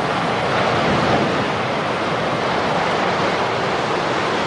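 Steady rushing roar of a large mass of turbulent water surging below a rock wall.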